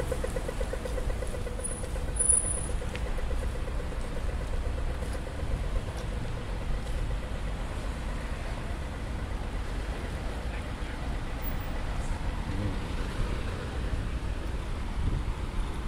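Road traffic on a wet city street: a steady low rumble of cars, with a humming vehicle note that fades out in the first second or two.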